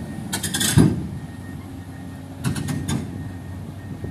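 Heavy diesel machinery running steadily as a Komatsu PC200 excavator is loaded onto a self-loader truck, with two short runs of rapid metallic clanks, one about a second in and another near three seconds in.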